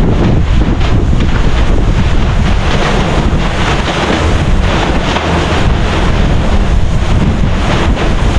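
Strong wind blowing hard across the microphone, a loud continuous rumbling rush.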